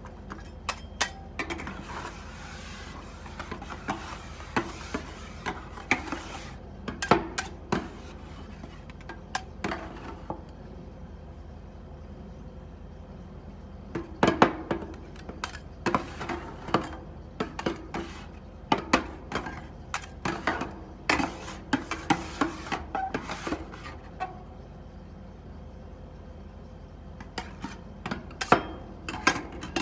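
Two metal spatulas chopping and scraping on a frosted steel ice-cream-roll cold plate: runs of sharp clinks and scrapes, pausing for a few seconds in the middle and again near the end.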